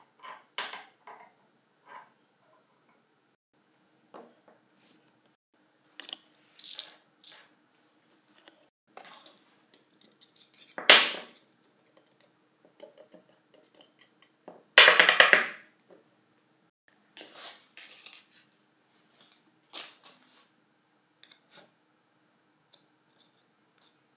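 Small steel impact-wrench parts clinking and tapping on a workbench as a ball bearing in its steel cup is handled and picked clean with a metal tool. There are scattered light clicks, with two longer, louder metallic noises about 11 and 15 seconds in.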